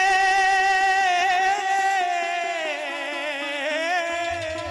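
Male singer of Pothwari sher holding one long high sung note with small ornamental turns. The note slides down in pitch about halfway through and fades toward the end. A drum starts beating near the end.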